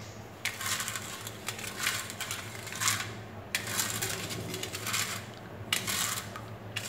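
Plastic spoon stirring sugar and salt into calamansi juice in a stainless steel bowl, scraping against the metal sides about once a second as the sugar is worked in to dissolve.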